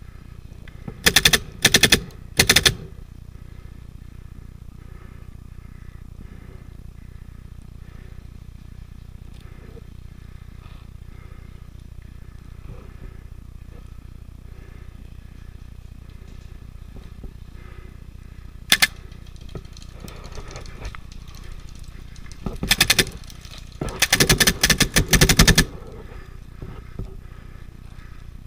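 Paintball marker firing in rapid bursts of shots: three short bursts near the start, a single shot about two-thirds through, and longer strings of shots near the end.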